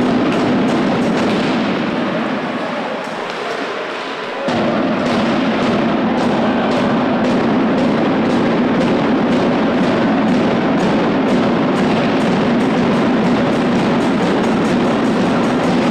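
Background music with a steady beat, about two beats a second; the bass drops out at the start and comes back about four and a half seconds in.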